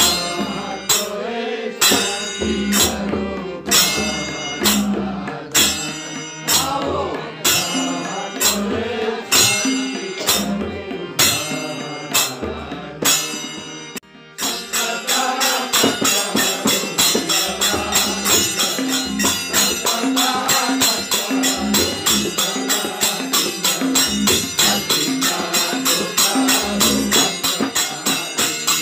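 Bhajan: voices singing a devotional chant over small brass hand cymbals (manjira) struck on a steady beat, about one clash a second, with tabla. About halfway through the beat changes to much faster, continuous cymbal clashing.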